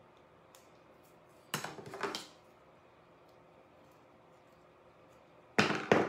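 Handling noises of a thin wooden stick being fitted into a wine cork: a few faint ticks, two short scraping rustles about a second and a half in, and a sharper knock near the end.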